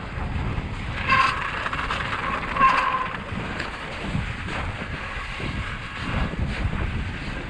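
Mountain bike descending through soft, rutted snow: a steady rush of wind over the helmet-camera microphone and tyre noise, with occasional knocks from bumps. Two brief high-pitched squeals about a second in and near three seconds.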